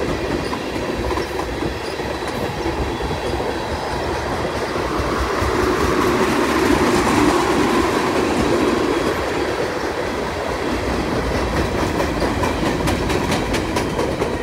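Freight train of tank cars rolling past: a steady rumble and clatter of steel wheels on rail, loudest in the middle, with quick clicking of wheels over rail joints toward the end as the last cars pass.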